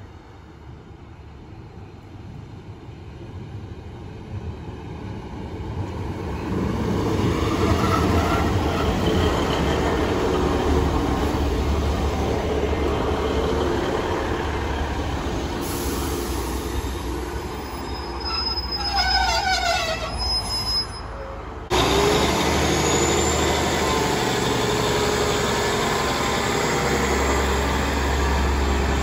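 Two-car diesel multiple unit train approaching and running along the platform, its engine and wheels rumbling louder over the first several seconds and then holding steady. About two-thirds through comes a brief squeal in a few falling notes. After an abrupt change, the engine note rises and a deep low rumble builds near the end.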